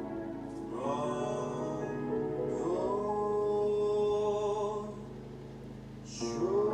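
A slow, gentle Christmas carol, sung with long held notes over instrumental backing.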